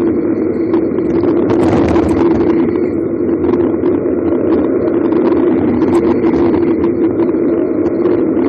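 Steady rushing wind on the camera's microphone and the hum of bicycle tyres rolling fast on asphalt while descending, with a few brief rattles.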